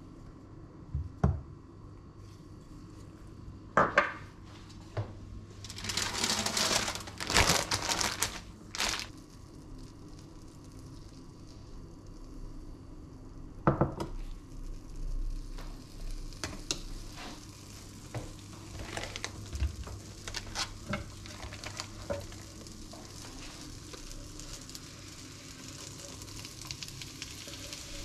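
Fat sizzling in a hot non-stick frying pan. Several loud bursts of sizzling come a few seconds in, and utensils knock against the pan as a spatula spreads the fat. The sizzle grows steadier and louder near the end as spinach is scraped off a wooden cutting board into the pan.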